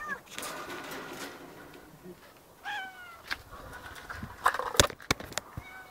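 A few short animal calls, each falling slightly in pitch, one at the start and one near the middle, with a burst of sharp knocks and clatter about four and a half seconds in.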